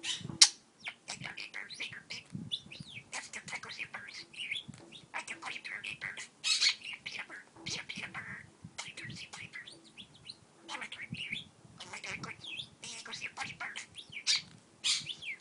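Pet budgerigar chattering and warbling nonstop, with speech-like mimicked talk mixed in, as it courts a stylus. A sharp click about half a second in.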